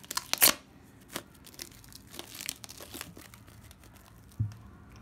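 PVC cling film being pulled from its roll over a bowl, crinkling and crackling, loudest in the first half-second and thinning out after about three seconds. A short low thump about four and a half seconds in.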